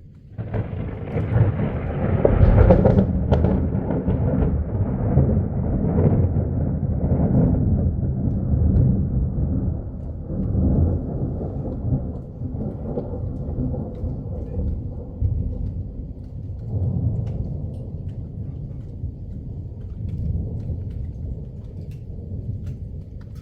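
Thunder: a loud clap breaks about half a second in and rolls on as a long deep rumble that swells and fades in waves, with rain falling.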